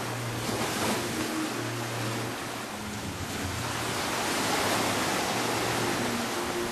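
Sea waves surging in and washing over granite boulders and sand, swelling louder about four seconds in, with a low steady hum underneath.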